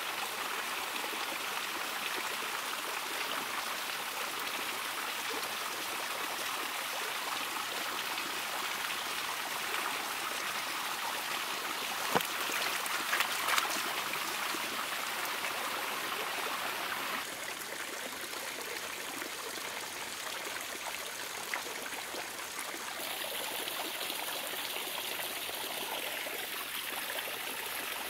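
Shallow stream running steadily over stones, with a few short splashes about halfway through as hands rinse a lump in the water.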